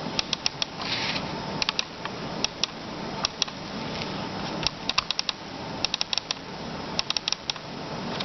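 Computer mouse microswitches clicking repeatedly: sharp clicks in small quick clusters of two to four, with a steady hiss underneath.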